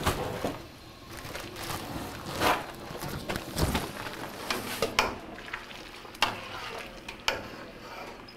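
A long paddle stirring food in liquid in a large commercial cooking kettle, with sloshing and about six sharp knocks as the paddle strikes the kettle's metal side.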